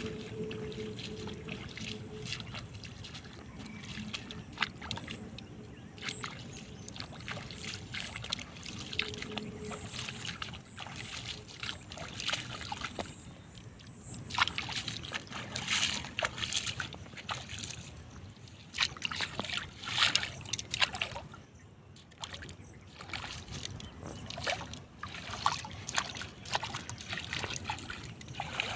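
Water sloshing and splashing in irregular bursts, with many short sharp knocks, busier from about halfway through.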